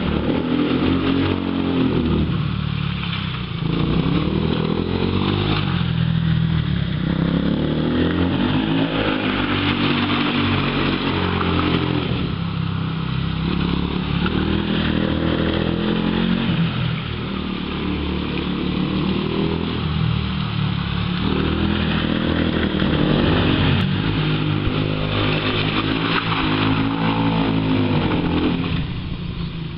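Quad bike (ATV) engine revving up and easing off over and over, its pitch rising and falling every few seconds as the rider accelerates and backs off through turns.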